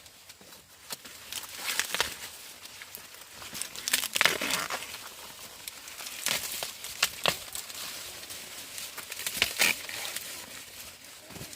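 Dry vegetation rustling and crackling in irregular bursts, with a few louder crackles, as of plants being handled or pushed through.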